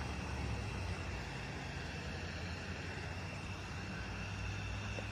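Steady low hum of idling vehicle engines at a roadside stop, with a faint steady high tone above it.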